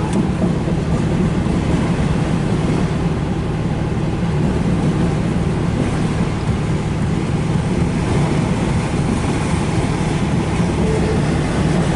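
Long freight train of autorack cars rolling past on the rails, a steady low rumble of wheels on track.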